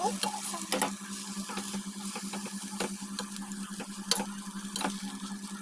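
Spoon stirring poha in a steel pan, knocking and scraping against the metal a handful of times over a light sizzle and a steady low hum.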